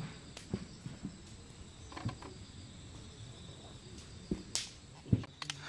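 Insects chirping steadily and faintly at a campsite, with scattered light knocks and clicks. The loudest is a single low thump near the end.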